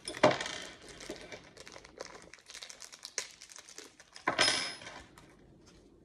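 Clear plastic packaging bag crinkling and small plastic doorbell parts clicking as they are handled, with two louder rustles about a quarter second in and about four and a half seconds in.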